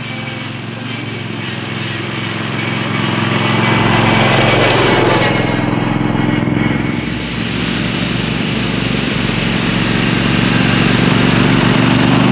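Garden-tractor mud mower's engine running hard as it is driven at speed across a field, growing louder as it passes close about four seconds in, then easing and swelling again near the end as it comes back.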